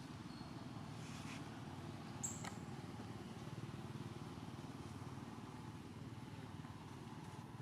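Steady low rumble of an engine running, with one sharp click about two seconds in.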